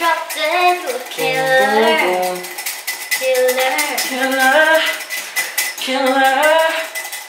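A song with a woman singing a melody, with notes held for about half a second at a time, over frequent sharp clinks of cutlery and dishes.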